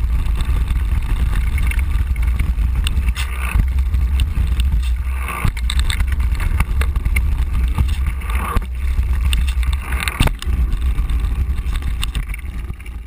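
Heavy wind buffeting on the microphone as a mountain bike rides fast down a gravel trail, with scattered knocks and rattles from the bike and its tyres on loose stones.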